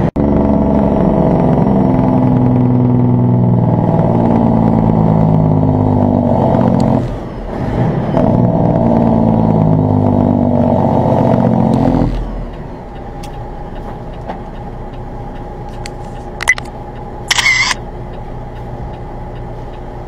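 Semi truck's diesel engine brake (Jake brake) firing loud and steady for about seven seconds, dipping briefly, then firing again for about four more seconds before cutting off. After that the diesel runs much quieter, with a sharp click and a brief higher-pitched burst near the end.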